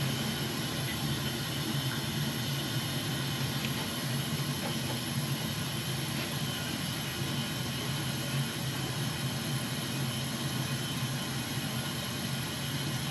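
Steady hiss with a low hum from a Weil-McLain steam boiler's water feed adding water to the boiler.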